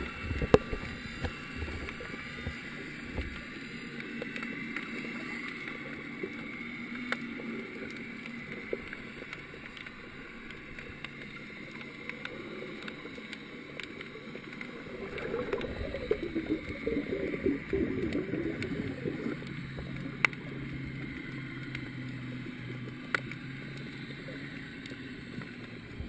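Underwater ambience heard through a camera's waterproof housing: a steady muffled wash of water with scattered sharp clicks, and a louder crackling rush for a few seconds a little past the middle.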